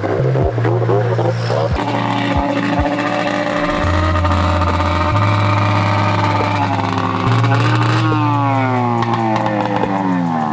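Snowmobile engines racing, the pitch climbing under throttle early on, holding, then sliding down as a sled passes or backs off near the end.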